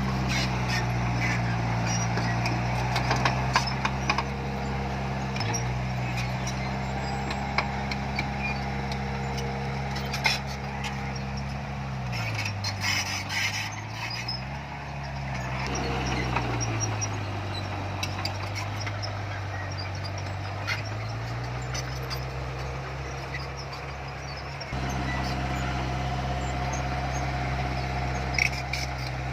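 Heavy diesel engine of earth-moving machinery running, with scattered metallic clanks and knocks. Its pitch drops lower for several seconds in the middle, then rises back. The sound shifts abruptly twice.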